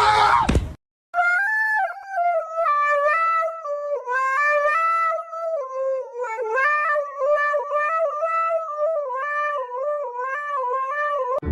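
A pet animal giving a long, high, wavering howl for about ten seconds, its pitch stepping up and down almost like a tune. It starts about a second in, after the tail of a louder, noisier sound cuts off.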